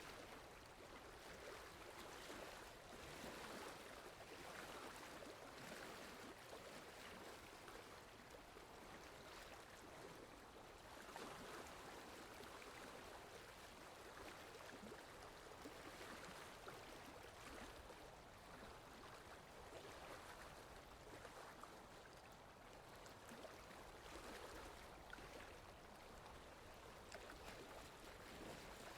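Faint lapping of lake water: a soft, steady wash that swells and eases irregularly every few seconds.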